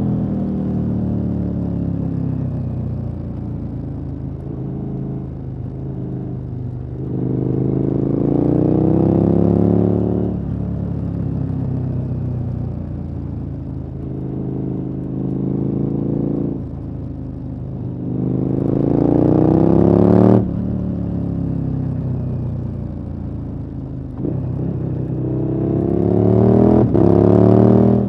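KTM 1290 Super Adventure S's 1301 cc V-twin through an aftermarket exhaust, riding along and pulling up through the revs three times, the pitch climbing with each surge before the throttle is shut and it drops back. The second surge cuts off suddenly, and the last has a brief break in it near the end.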